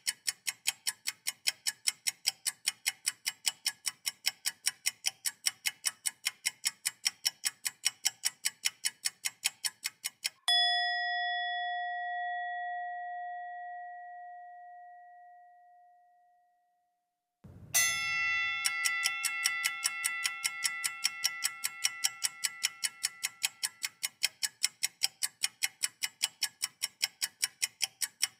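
Rapid, even ticking, about four to five ticks a second, stops about ten seconds in. A single bell-like tone is struck and rings, dying away over about six seconds; a second, fuller bell-like strike follows, and the ticking starts again while it fades.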